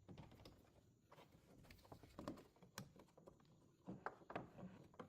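Near silence with a few faint, scattered clicks and taps: pliers and hands working a plastic turn signal light socket loose from its housing.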